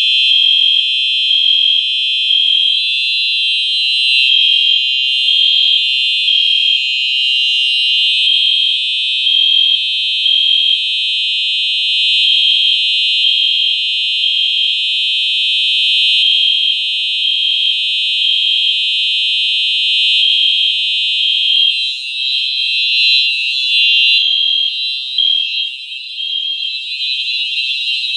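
Fire alarm horns sounding continuously after a pull station has been pulled: a Simplex 4903-9241 horn strobe and an Edwards Genesis horn together, giving a loud, steady, high-pitched electronic tone.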